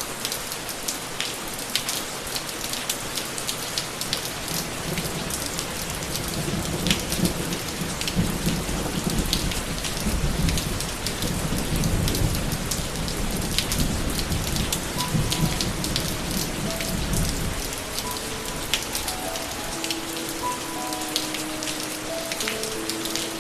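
Steady rain, with fine pattering of drops, and a long low rumble of thunder rolling from about six seconds in until it fades out near seventeen seconds. Soft melodic notes of music start to come in over the rain in the last few seconds.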